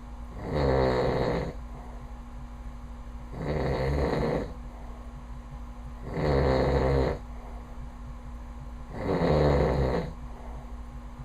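A man snoring in his sleep, extremely loud, with four snores about three seconds apart, each lasting about a second. A faint steady hum fills the gaps between them.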